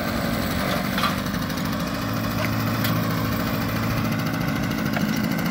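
A small engine idling steadily, a low, even drone with no change in speed.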